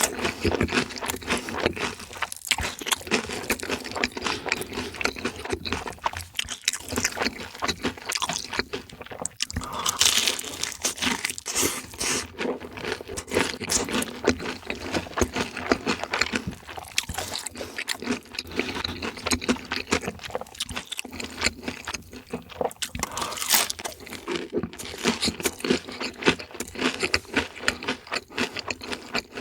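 Close-miked eating sounds: continuous crisp crunching and chewing of crunchy fried chicken, with irregular crackles packed densely together.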